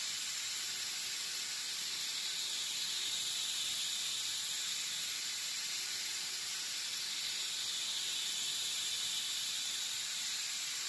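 CNC milling machine cutting hardened mold steel with a corner-radius end mill: a steady, high-pitched hiss that does not change.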